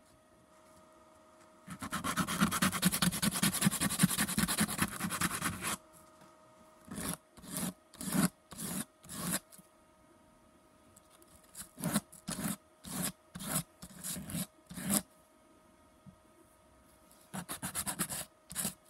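A small carved pine lure piece is rubbed on a sheet of coarse 80-grit sandpaper laid flat. After a short quiet start comes about four seconds of fast, continuous scrubbing, then groups of separate short strokes.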